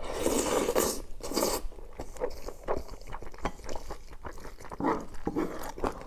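Close-miked eating of spicy chicken with rice: a loud crunchy bite in the first second and another shortly after, then chewing with many small mouth clicks.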